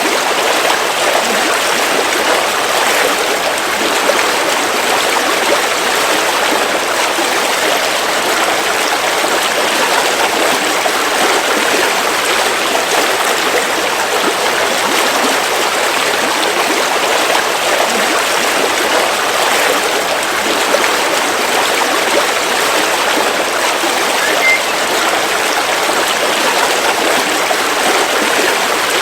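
River water flowing steadily, an even continuous rush of a stream.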